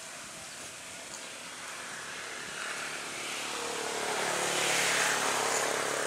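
A motor vehicle's engine passing by, swelling in loudness over the first few seconds and loudest about five seconds in, with a steady engine hum under a rush of road noise.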